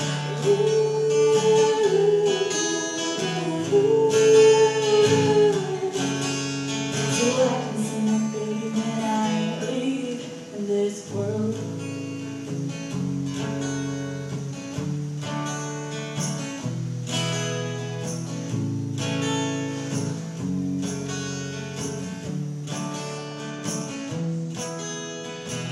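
Acoustic guitar strummed with a woman singing long held notes over it. About ten seconds in the voice stops and the guitar carries on alone with steady chord strokes.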